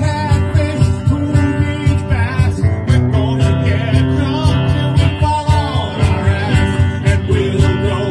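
Live country-punk band playing a song: hollow-body electric guitar and a one-string pole bass over a steady beat, with a singing voice.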